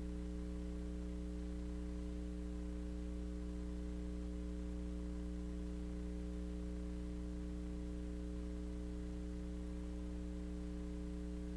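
Steady electrical mains hum: a low buzz of several fixed tones over a faint hiss, unchanging.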